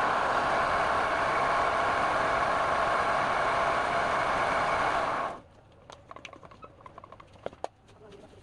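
A woodworking power tool running steadily with a constant pitch, cutting off abruptly about five seconds in. It is followed by quieter scattered taps and knocks.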